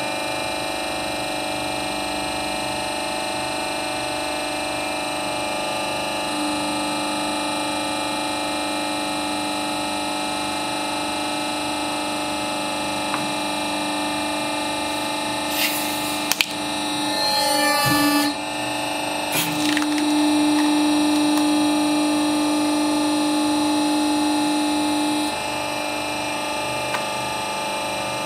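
Hydraulic press pump running with a steady hum that strengthens as the ram comes down. Just past the middle, a small plastic tub cracks and pops with a brief rising squeal as it is crushed, and the pump then runs harder for several seconds before easing off.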